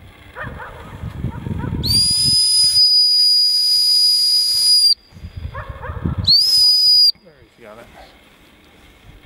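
Retriever training whistle blown twice: a long, steady, high-pitched blast of about three seconds, then after a pause a shorter blast. The handler's whistle signals to a Labrador working a blind retrieve at long distance.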